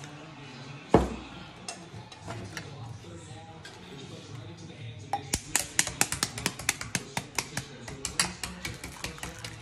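A single thump about a second in, then from about halfway a quick run of sharp taps, roughly five a second: a metal spoon tapping the top of a boiled duck egg (balut) to crack its shell.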